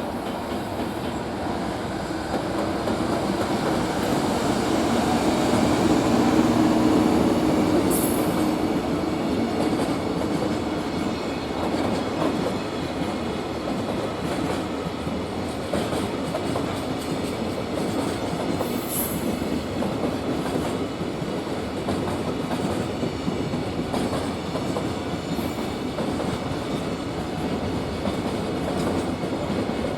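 A long freight train rolling past, its wagons' wheels clattering on the rails. It grows louder over the first six seconds, then runs on steadily.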